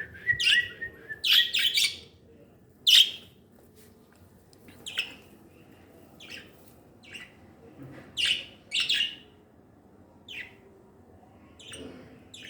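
Small pet birds chirping in short, sharp calls at irregular intervals, busiest in the first three seconds.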